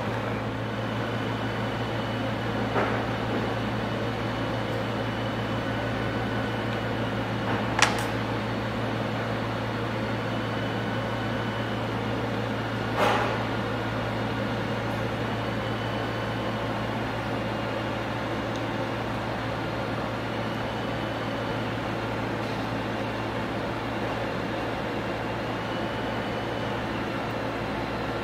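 Steady low mechanical hum of machinery or air handling, with three brief sharp clicks about 3, 8 and 13 seconds in as small metal valve parts are handled.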